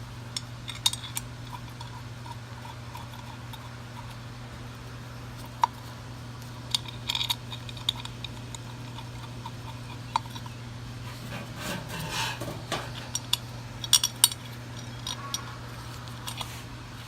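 Scattered light metal clinks and taps of hand tools and small bolts being handled while the motorcycle's oil filter cover is refitted, busiest near the end, over a steady low hum.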